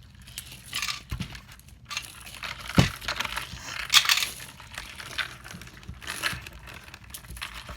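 Small metal chain clinking and rattling as it is handled, among scattered clicks and rustles; the sharpest clinks come about three and four seconds in.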